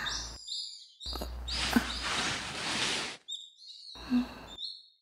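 Small birds chirping in short high calls with a little downward hook, heard in several chunks that stop abruptly. From about a second in, a rushing noise rises under the chirps for about two seconds and cuts off.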